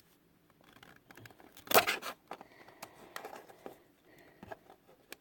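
Guitar pick prying at a disk's hard plastic casing: irregular clicks and small scrapes, with one louder scrape a little under two seconds in.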